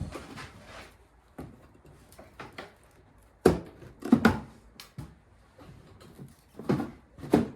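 Scattered knocks and clunks of hand tools and parts being handled while unbolting the rear of a snowblower's engine cover, the loudest about halfway through and near the end.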